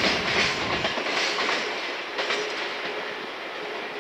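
Container freight train's wagons rolling over the rail joints with a clickety-clack, fading as the end of the train draws away.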